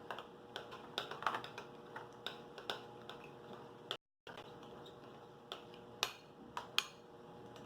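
Scattered light clicks and taps of a utensil against a container as slime is mixed. The sound cuts out completely for a moment about four seconds in.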